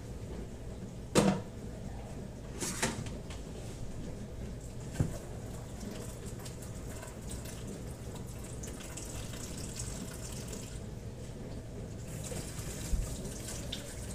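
Kitchen tap running into the sink, with a sharp knock about a second in, a clatter a couple of seconds later, a click, and another knock near the end as dishes and utensils are handled.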